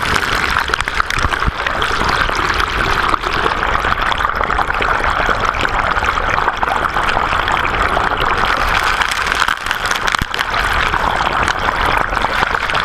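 Water rushing steadily through an Eldorado sluice box, heard from a camera held in the flow inside the sluice: a loud, unbroken rush.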